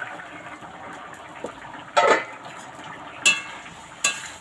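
A steel lid and a metal ladle clanking against a kadai of simmering potato curry: three sharp clanks about two, three and four seconds in, the middle one ringing, over a steady simmer.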